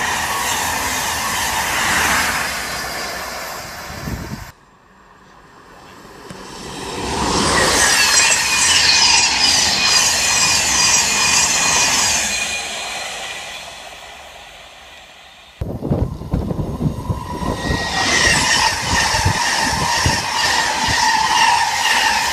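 Express passenger trains passing at speed: the rush of steel wheels on the rails, swelling and fading as the coaches go by, in three passes joined together, with two abrupt cuts where the sound drops out and comes back.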